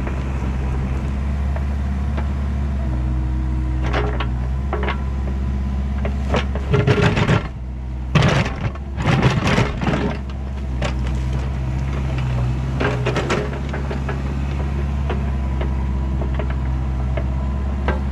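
Kubota KX121-3 mini excavator's diesel engine running steadily, with a hydraulic whine that comes and goes as the arm and bucket move. About halfway through there is a burst of scraping and clanking as the bucket digs into dirt and stones, and a shorter one a few seconds later.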